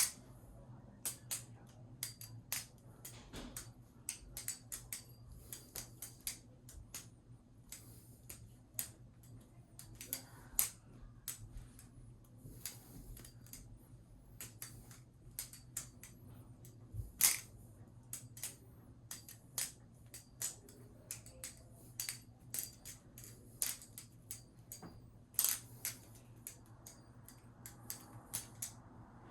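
Balisong (butterfly knife) being flipped freestyle: irregular sharp metallic clicks and clacks, several a second, as the handles swing and knock against each other, with a couple of louder clacks along the way.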